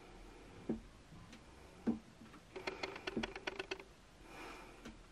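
Faint knocks and a quick run of clicks from a wooden shelf and its metal brackets being shifted against the wall while it is levelled, pivoting on a single screw. Two single knocks come first, then about eight rapid clicks around the middle.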